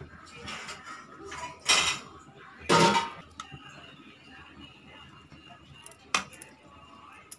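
Kitchen utensils handled against dishes: two short scraping sounds a couple of seconds in, then a single sharp clink near the end.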